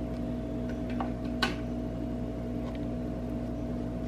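Steady low mechanical hum holding a couple of constant pitches, with light clicks about a second in and a sharper one about a second and a half in, as a glass door is opened.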